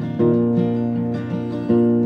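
Steel-string acoustic guitar strumming chords for a country song, a fresh strum just after the start and another near the end.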